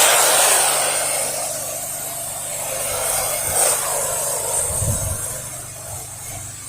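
Pressure washer running and spraying soap solution: a steady low engine hum under a loud hissing spray. A few low rumbles come through about five seconds in.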